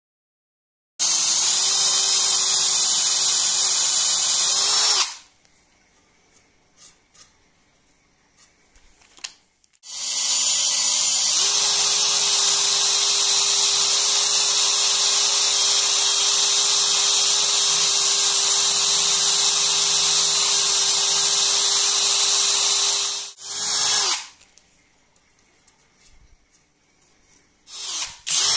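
Power drill boring into a wooden plank with a carbon-steel countersink wood bit, its motor whining steadily. It runs in a short first spell and then a long second one that starts at a lower speed and picks up about a second in, with short bursts near the end.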